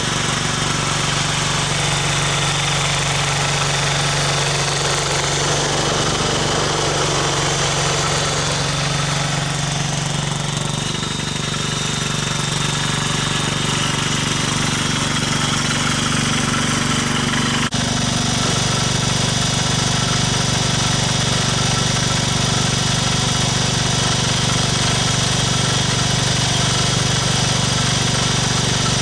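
Engine of a snow-removal machine running steadily, its pitch wavering slightly. About two-thirds of the way through there is a sharp click, and the engine's note changes abruptly.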